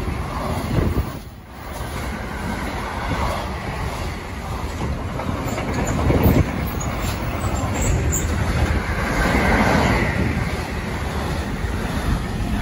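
A freight train of curtain-sided, covered and container wagons passing close at speed: a steady noise of wheels on the rails and rushing air, with a brief dip in loudness about a second and a half in.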